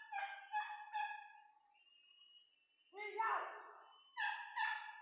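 Hunting dogs yelping in quick runs of short, high-pitched yelps: a cluster of four or five in the first second and a half, a louder one about three seconds in, and two more near the end. A steady high-pitched drone runs underneath.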